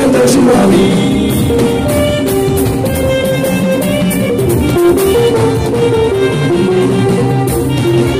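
Live Fuji music: a steady percussion beat under held instrumental notes, with singing.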